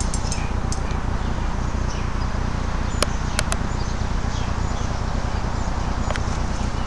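Steady outdoor background hiss and low rumble on a handheld camera's microphone, with a pair of sharp clicks about three seconds in and another near the end.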